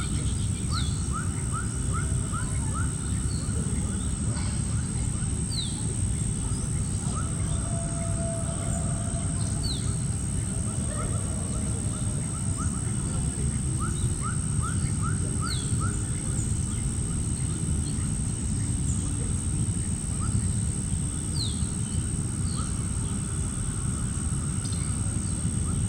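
Small birds chirping outdoors: quick runs of about five short falling chirps, with single sharp higher notes now and then. Under them runs a steady low rumble of background noise and a constant high thin tone.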